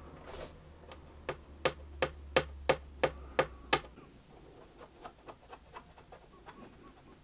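Sharp wooden clicks from fingers pressing and tapping on a cello back at a freshly glued open crack, as glue is worked into the joint: a run of about eight loud clicks at roughly three a second, then fainter ones.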